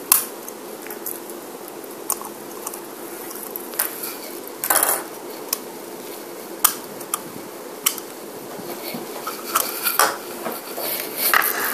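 Scattered clicks and clatter of a small hard-plastic candy-dispenser toy being handled and twisted at its cap, with one longer burst of clatter about five seconds in.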